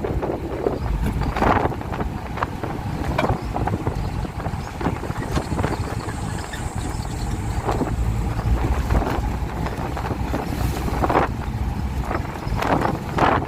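Vehicle running in motion: a steady low rumble with wind buffeting the microphone, and a few sudden knocks and rattles along the way.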